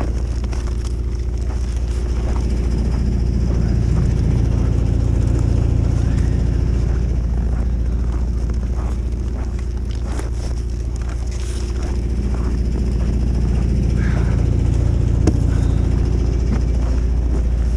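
An engine running steadily, a low even hum, with small knocks and crunches over it.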